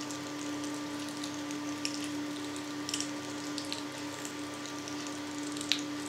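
Hand-cranked stainless-steel vertical sausage stuffer pushing pork mince into a hog casing, with faint scattered wet crackles and clicks over a steady hum.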